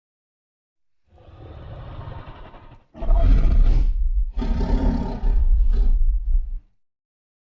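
Giganotosaurus creature sound effect: a quieter low growl, then two long, loud roars, one straight after the other.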